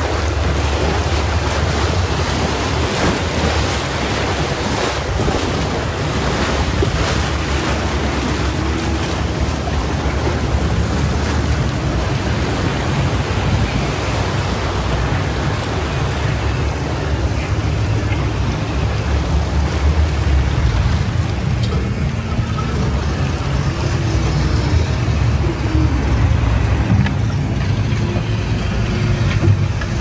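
Rushing white water of a theme-park raft ride's rapids churning steadily around the raft, with wind buffeting the microphone as a low rumble.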